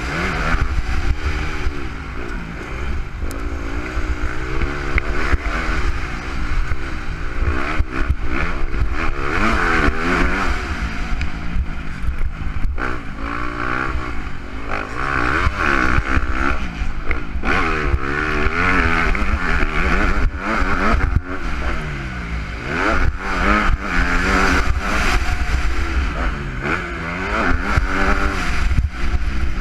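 Motocross bike engine heard from on board at race pace, revving up and dropping back again and again as the rider opens and closes the throttle and changes gear.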